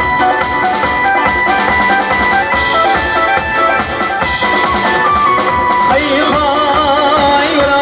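Live band music: electronic keyboards playing a melody over a drum kit beat.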